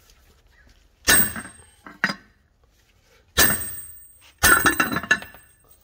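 Hammer blows on a socket used as a drift, driving the rear wheel bearing out of a 2014 Nissan Versa's brake drum hub: four sharp metal strikes with a ringing tail, roughly a second apart, the second one lighter. The bearing is almost out.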